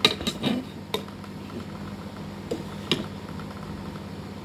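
Utensil clinking and scraping against cookware as instant ramyun noodles are stirred: a quick run of sharp knocks at the start, one a second in, and two more near the three-second mark, over a low steady hum.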